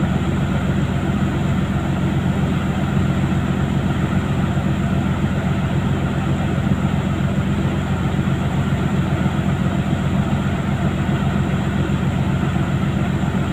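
Steady rumble of a fishing boat under way: the engine's low drone mixed with the hiss of wind and water passing the hull.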